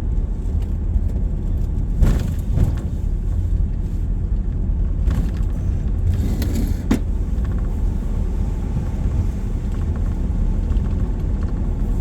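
Steady low engine and road rumble heard inside the cab of a moving vehicle, with a few short knocks and rattles from bumps about two seconds in and again around five to seven seconds in.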